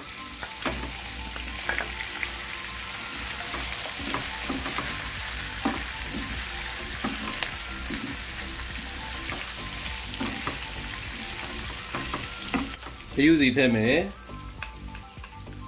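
Cuttlefish pieces and whole prawns sizzling as they fry in butter with chopped garlic and shallots, with the clicks and scrapes of a utensil stirring them in the pan. About thirteen seconds in the sizzle drops and a brief, loud wavering tone cuts in.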